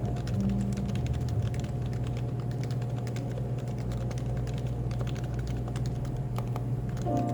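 Steady, fast typing on a Happy Hacking Keyboard (HHKB): a dense run of quick keystroke clicks over a steady low café background hum.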